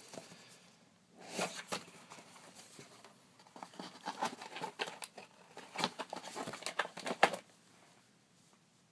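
Hands handling a boxed collectible wand and its packaging: irregular rustling, scraping and small clicks, ending with a sharp click just after seven seconds.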